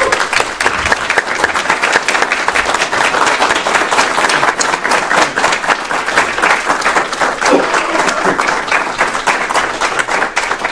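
A small audience applauding: many pairs of hands clapping in a dense, steady patter.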